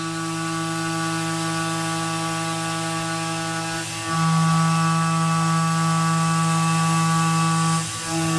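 CNC mill spindle driving a quarter-inch two-flute end mill through aluminum, a steady pitched whine of the cut. It grows louder about four seconds in and drops back just before the end.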